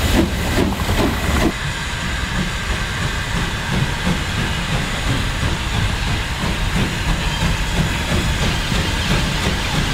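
LMS Ivatt Class 2MT 2-6-2 tank locomotive working a train of wagons, its exhaust beating rhythmically with steam hiss and the rumble of wheels on rail. About a second and a half in, the brighter chuffing gives way to a deeper, steady rumble of beats.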